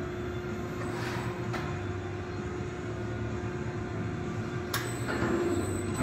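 RAS Turbobend Plus 62.30 CNC sheet-metal folding machine running a bend cycle: a steady drive hum with a held tone, sharp clicks about a second in, half a second later and again near the end, where it grows louder.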